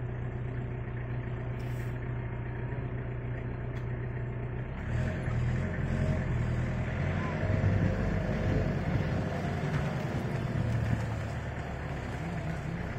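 Vehicle engine running with a steady low hum, growing louder and rougher about five seconds in as the van moves off along the road.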